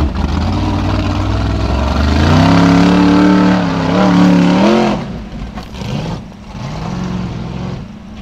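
Formula Offroad buggy engine revving hard on a steep hill climb. The pitch sweeps up about two seconds in and is held high, then drops off about five seconds in to shorter, lower blips of throttle.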